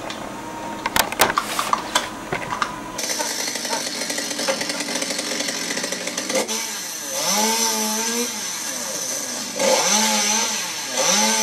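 Sharp metal clicks and knocks, like the rings and buckles of a work belt, for the first few seconds. After an abrupt change, a two-stroke chainsaw runs with its revs rising and falling again and again, about once a second, as it prunes araucaria branches.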